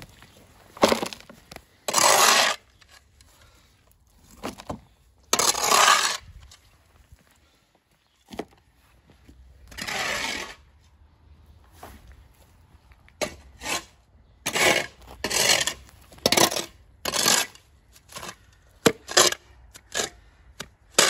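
Hand scraper scraping moss and weeds off patio paving: irregular rasping strokes, each about half a second long, with pauses between them, coming quicker and shorter in the second half.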